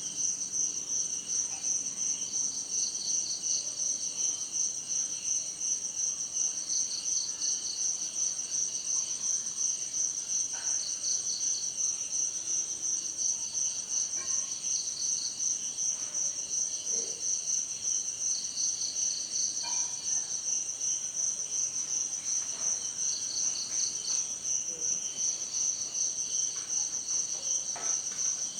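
A chorus of crickets chirping: one high, fast-pulsing trill runs unbroken, while a second, slightly lower trill starts and stops in spurts of about a second.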